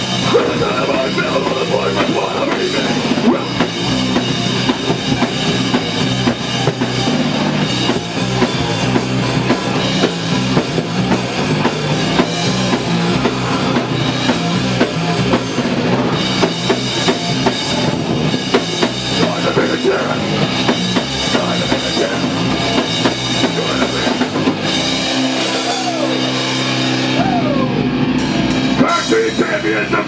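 Heavy metal band playing loud and continuously: distorted electric guitars, bass and a drum kit.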